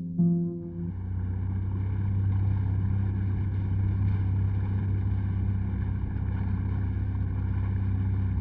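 A boat's engine running steadily with a low hum, starting about a second in as the last plucked guitar note dies away.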